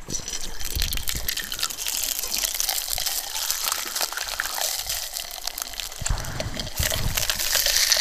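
Mackerel fillets sizzling in a hot stainless frying pan as they are laid in: a dense, crackling hiss.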